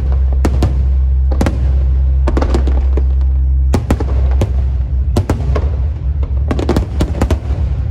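Fireworks and firecrackers going off in sharp, irregular bangs, sometimes several close together, over a steady low rumble.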